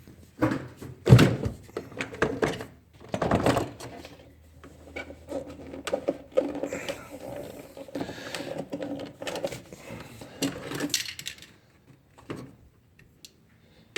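Hand work on the engine parts: scattered knocks and clunks, the loudest about a second in and again around three seconds, then softer scraping and rubbing from the middle on.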